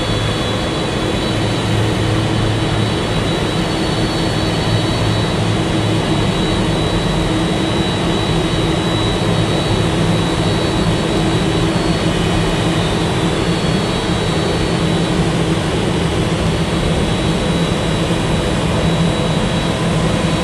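Steady jet aircraft engine noise: a constant rushing roar with a low hum and a thin high whine, unchanging in level.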